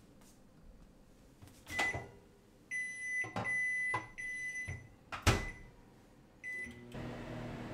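Built-in electric oven being loaded and started: electronic beeps from its controls with a few knocks as the tray goes in, the door shutting with a thud about five seconds in, then a short beep and the oven's fan starting up with a steady hum.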